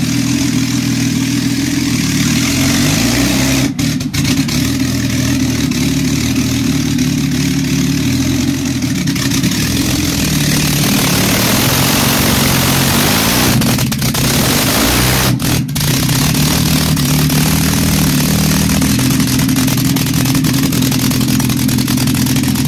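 Rat-rod car engine running loudly through short open exhaust stub pipes with no mufflers, its speed drifting up and down. A louder hissing edge comes in about ten seconds in.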